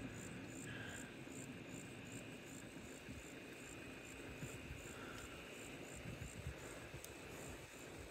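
Faint chirping of insects: a steady, even rhythm of high pulses, a few a second.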